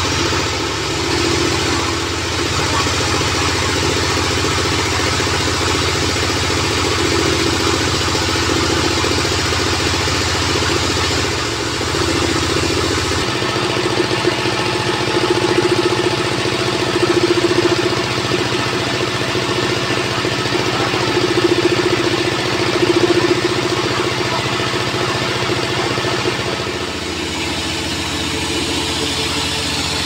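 Engine of a homemade sawmill bandsaw running steadily at idle while the log is positioned, with no cut underway; its tone shifts a little about 13 seconds in.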